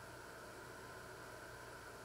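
Steady faint hiss of room tone and recording noise, with a low hum underneath; nothing else happens.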